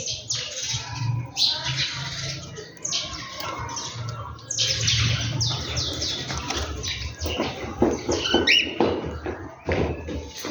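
Many birds chirping and squawking at once, their short downward-sliding calls overlapping in a dense chatter, with a few louder, sharper calls a little after the middle.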